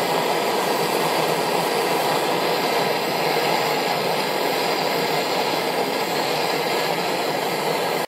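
Gas blowtorch burning with a steady hiss as it heats soft-soldered bronze half-shell bearings to melt the solder and separate them. The hiss holds level throughout and cuts off abruptly at the very end.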